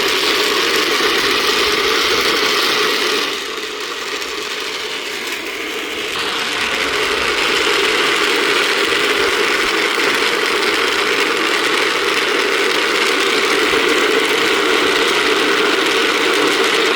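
Star rolling machine running: firework stars tumbling and rattling in the turning drum, a steady mechanical clatter. It drops quieter about three seconds in and comes back up a few seconds later.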